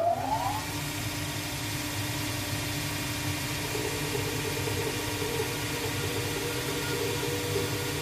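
A cobbler's finishing-machine motor comes up to speed in the first second, then runs with a steady hum. From about four seconds in, a higher, wavering whine joins it as the spinning groover bit cuts a channel into the edge of a leather sole.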